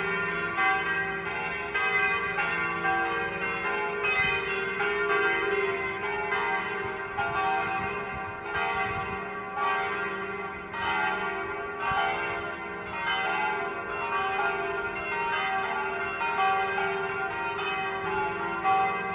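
Several church bells ringing in steady succession, a new strike coming roughly every second, their tones overlapping and ringing on.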